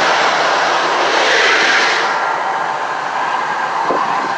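Steady roar from the Mirage Volcano's eruption effect, gas flames bursting over the lagoon. The roar eases about two seconds in as the flames die down, leaving a quieter rush of water.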